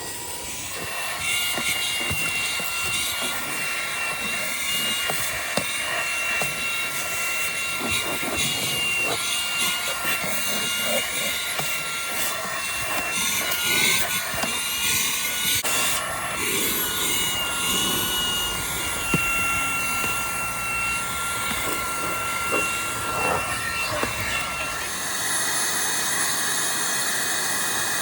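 Cordless handheld vacuum's small high-speed motor running, a whooshing rush with a high, slightly wavering whine. About 25 seconds in the whine drops out and the rush takes on a different, steadier tone.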